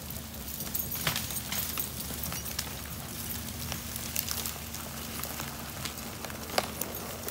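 An engine running steadily at low speed, with scattered sharp clicks and knocks over it.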